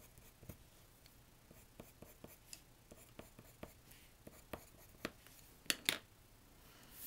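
White colored pencil flicking quick short strokes on cardstock: a run of faint, irregular scratchy ticks. Two louder sharp taps near the end as the pencil is set down.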